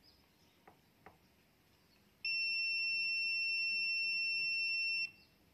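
Multimeter continuity buzzer giving one steady high beep about three seconds long, starting about two seconds in and cutting off abruptly: the probes are bridging two points joined by a copper track on the TV mainboard.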